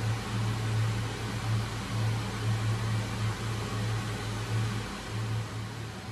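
A fan running: a steady low electrical hum with an even rush of air.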